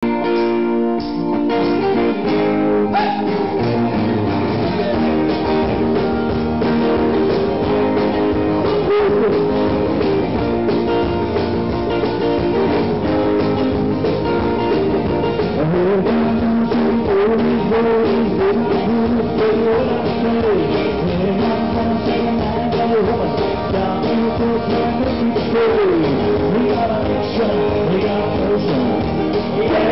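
Live acoustic guitars strummed and picked, with a voice singing a rock/blues-style melody over them at the microphone.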